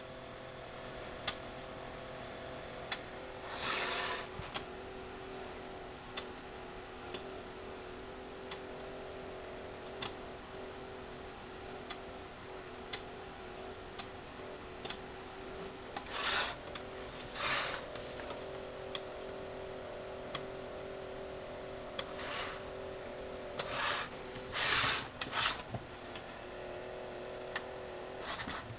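Motor and gear mechanism of an old motorised toy fish running steadily with a low hum, ticking now and then, with a few short louder rasping bursts as it works the fish back and forth.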